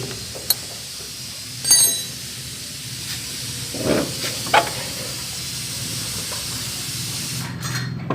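Steady hissing noise over a low hum, with a few sharp metallic clinks; the loudest clink comes a little under two seconds in.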